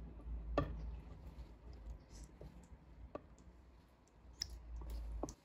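Scattered light clicks and taps of a spoon against a pan and a glass serving dish as meatballs in sauce are spooned in, over a low hum that cuts off near the end.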